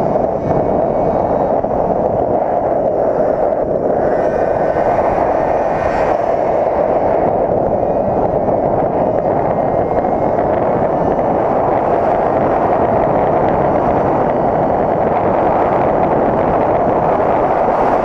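Gas GoPed GSR46 scooter's small two-stroke engine running steadily under way at speed, with wind noise on the helmet-mounted microphone.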